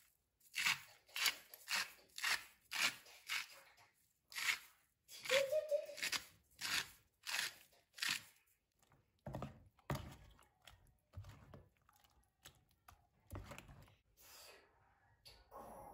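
Rhythmic crunching of crisp food, about two crunches a second, thinning out to scattered, softer crunches after about eight seconds.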